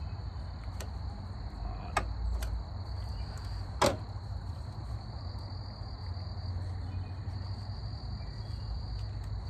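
Sharp plastic clicks from a zip tie being fastened around a mower's fuel line: one about two seconds in and a louder one near four seconds, with a few faint ticks later. Insects chirr steadily throughout.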